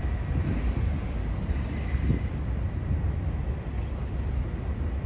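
Steady low outdoor rumble of trucks and traffic around a truck stop lot, mixed with wind buffeting the microphone.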